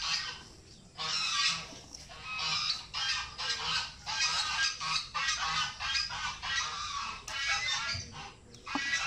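Fowl honking over and over in a long series of harsh calls, with short breaks just after the start and about eight seconds in.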